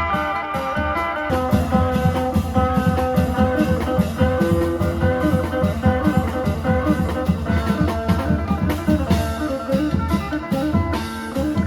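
Isan phin (Thai lute), amplified, playing a quick, ornamented melody over klong yao long drums and other percussion keeping a steady beat.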